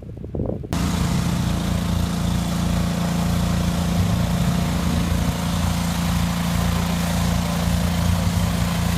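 An engine running steadily with an even low hum. It cuts in abruptly about a second in and holds level.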